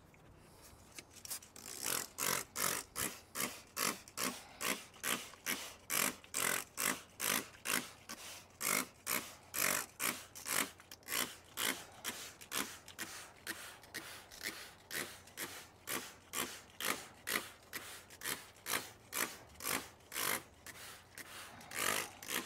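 Hand trigger spray bottle squirting liquid in quick repeated pumps, about two a second, starting about a second in.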